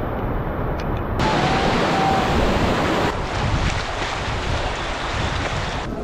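Water rushing down a monsoon-swollen waterfall as a steady, loud roar. The character of the noise changes abruptly about a second in and again about three seconds in.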